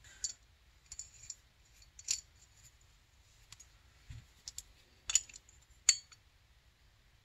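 Small metal carburetor parts clicking and clinking as they are handled during reassembly: a scattering of short sharp ticks, the two loudest about five and six seconds in.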